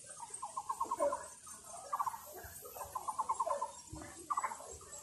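Animal calls: four short, rapid rattling trills, one roughly every second, with lower swooping notes in between.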